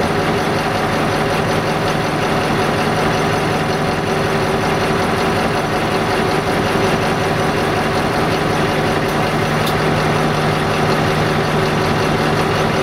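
Diesel engine of an LDH1360 diesel-hydraulic shunting locomotive running steadily, with an even, unchanging drone as the locomotive moves slowly.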